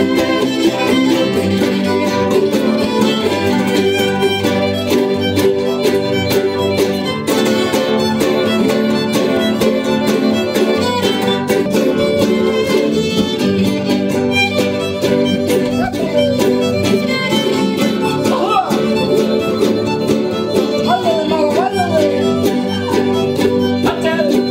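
Live traditional Veracruz folk music on string instruments: a steady, quick strummed rhythm under a high melody line, with a few sliding high notes in the second half.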